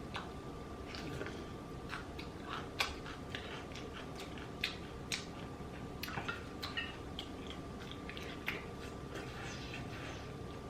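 Close-miked chewing and eating of chewy spicy rice cakes (tteokbokki): wet mouth smacks and irregular small clicks.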